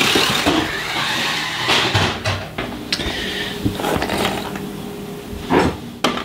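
Toy radio-controlled Chevrolet Camaro's small electric motor and gears whirring as it drives on a tile floor, the high whine fading in the first second. Then a string of sharp knocks and clatters as the plastic car is grabbed and handled, one of the loudest near the end.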